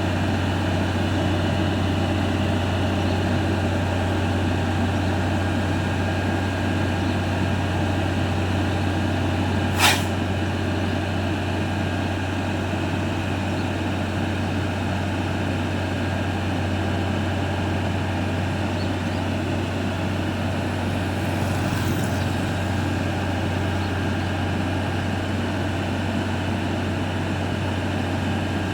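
Hino concrete mixer truck's diesel engine running steadily with a constant low hum. A short, sharp hiss of air sounds about ten seconds in, and a fainter one later.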